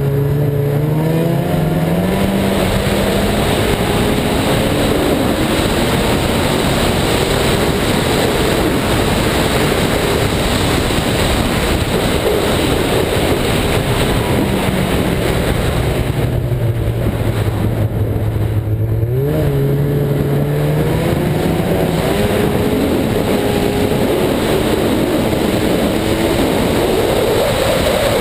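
Ski-Doo snowmobile engine running under throttle over a steady rush of noise. It revs up over the first few seconds, holds, and drops off about halfway through. Around two-thirds of the way in it picks up sharply, then climbs again near the end.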